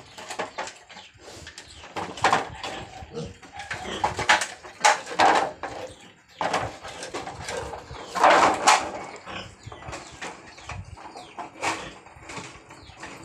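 A litter of piglets eating wet mash from shallow metal dishes: irregular chewing, slurping and animal noises, with louder bursts about two seconds in, around four to five seconds in, and near eight seconds in.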